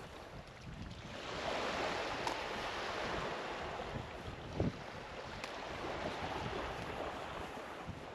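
Beach ambience of wind and a gentle surf wash, swelling about a second in. A brief thump about four and a half seconds in.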